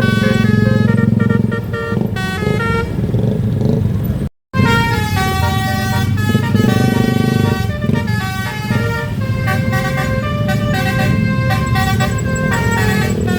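Basuri telolet bus horn playing a quick melody of stepped, held tones over a low rumble. The sound cuts out completely for a split second about four seconds in.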